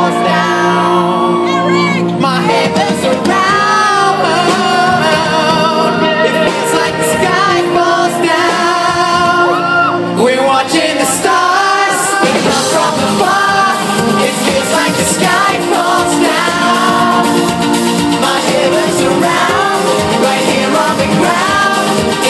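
Live pop music from a concert sound system: sustained chords under a singer's wordless, gliding vocal lines. A beat with sharper percussion comes in about ten seconds in.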